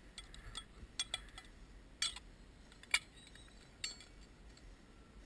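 Stainless steel camping bowls clinking as they are handled, a scattered series of light metallic clinks, the sharpest about three seconds in.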